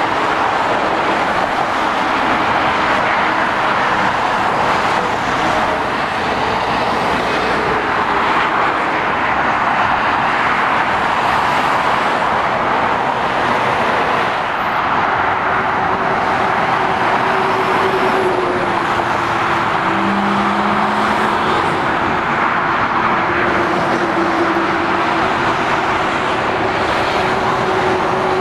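Steady motorway traffic passing below: continuous tyre noise from cars, vans and heavy lorries, with a low engine hum standing out more clearly in the second half.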